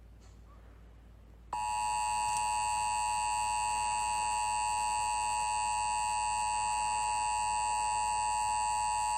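Emergency Alert System attention signal: a loud, steady two-tone alarm that switches on abruptly about a second and a half in. It announces an emergency alert, here a winter storm warning.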